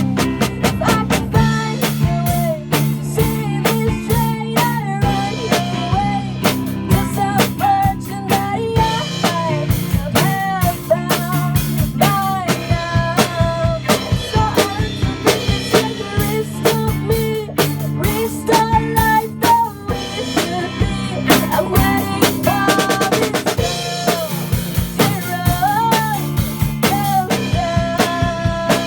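A band playing a rock song with no vocals: a drum kit with snare, bass drum and rimshots keeps a steady beat under bass, guitars and keyboard, and a melody line slides between notes above.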